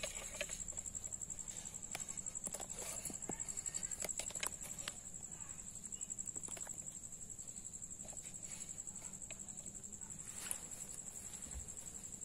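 A cricket trilling steadily at a high pitch, with scattered small clicks and taps over it, thickest in the first few seconds and again near the ten-second mark.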